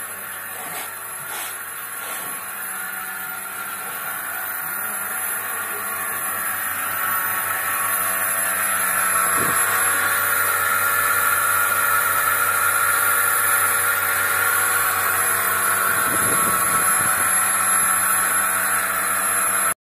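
Milking machine's belt-driven vacuum pump unit running steadily, a steady machine hum with a hiss, growing louder through the first half and then holding level.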